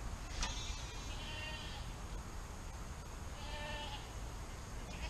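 Fainting goats bleating twice: a long quavering bleat about half a second in, and a shorter one past three seconds in.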